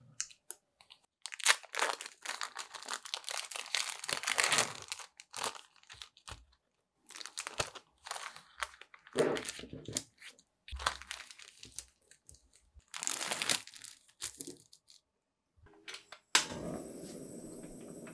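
Thin plastic film wrappers of sliced cheese crinkling and tearing in several bursts as they are peeled off by hand. Near the end a steady hiss with faint high tones starts suddenly, as the stove comes on under a frying pan for preheating.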